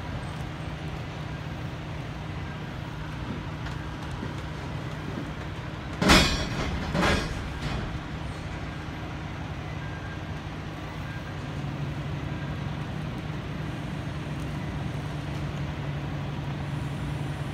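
Semi truck's diesel engine running at low revs as the tractor-trailer backs slowly up, a steady low drone that grows a little louder about two-thirds of the way through. About six seconds in comes a sudden loud sound, with a shorter one about a second later.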